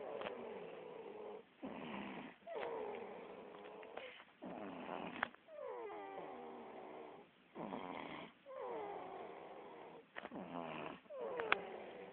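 Snoring in slow, regular breaths, about one full breath every three seconds. Each breath has a noisy part and a whistling part whose tone slides downward.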